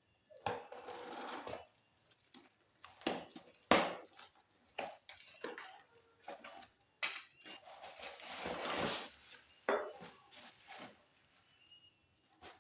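Unboxing handling: packaging rustling while a metal BMX crank set is moved about, knocking and clinking in irregular bursts, with a sharp knock about three and a half seconds in.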